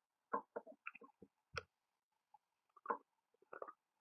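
A hardcover picture book being opened and its pages turned: a few short, soft handling sounds with one sharper click about a second and a half in.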